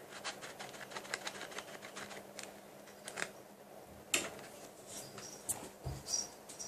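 Homemade glue slime being kneaded and pulled by hand, making a run of small sticky clicks and crackles, with one sharper click about four seconds in.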